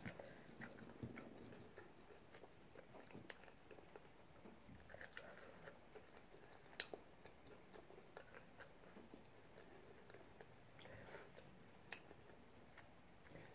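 Faint chewing and mouth clicks of a person eating a taco, with one sharper click about seven seconds in.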